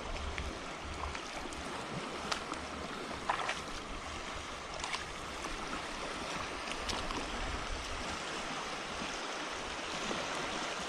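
Steady wash of shallow seawater on a reef flat at low tide, with a few faint, scattered clicks.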